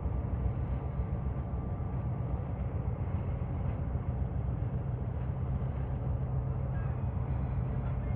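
EMD FP7 diesel locomotives running with a steady, deep rumble as the train rolls along.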